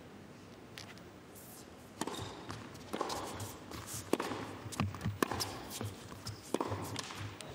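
Tennis rally on an indoor hard court: sharp racket strikes on the ball and ball bounces, starting about two seconds in and coming roughly every half second to a second, with shoe squeaks and footsteps between them.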